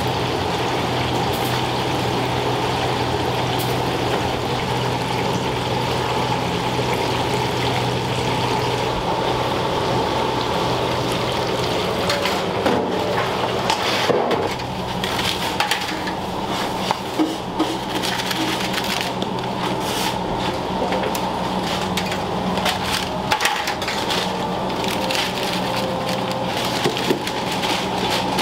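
Steady machine hum over a constant rushing noise, joined about halfway through by irregular clicks and crackles.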